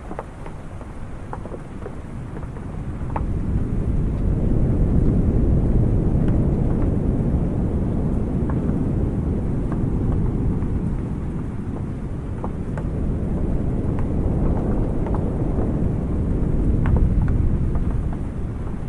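Ocean waves washing in, a low rumbling wash that swells and eases twice, with scattered raindrops tapping on a wooden awning.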